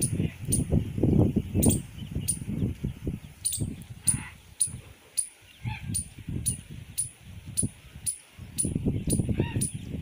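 Wind buffeting the microphone in uneven low gusts. Over it comes a faint, very high ticking about twice a second, and a few short bird calls.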